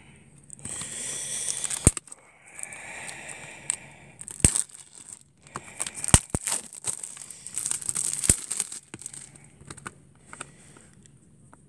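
Clear plastic shrink wrap crinkling and tearing as it is peeled off a Blu-ray case, in several bursts with a handful of sharp clicks among them.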